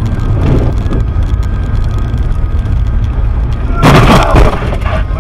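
Steady low road and engine rumble inside a car skidding on a snowy highway, then a loud crunching impact lasting under a second about four seconds in, as the car slews sideways toward the guardrail.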